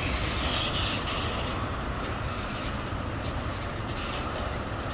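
Norfolk Southern freight train rolling by: a steady rumble of wheels on rail that eases off slightly as it heads away.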